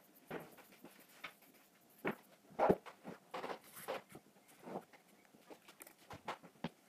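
Kamisori straight razor scraping across forearm hair in a test shave, then scattered handling knocks and rustles on a table, the loudest a pair of knocks a little over two seconds in.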